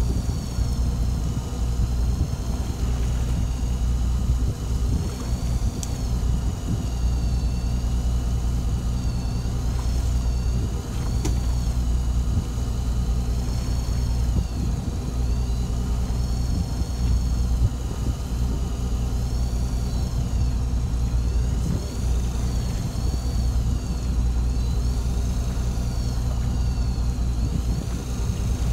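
A fishing boat's engine running steadily with a low hum, while a faint high whistle wavers up and down over it.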